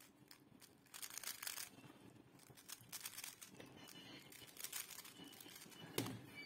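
Plastic 3x3 speed cube being turned fast, its layers clicking and rattling in irregular flurries. About six seconds in, a sharper knock as the solved cube is set down on the wooden table.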